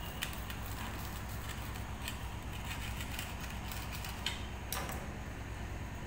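Crisp toasted sandwich bread crackling in a few short clicks as fingers lift and separate the cut halves on a plastic plate, over a steady low hum.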